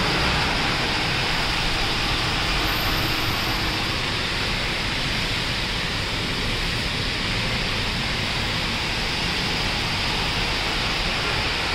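Heavy rain falling, a steady even hiss with no let-up.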